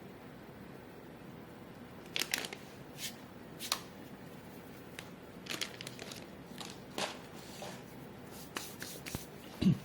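Irregular light crackles and clicks from a dog moving about in its kennel, over the steady hiss of an electric fan, with one dull thump near the end.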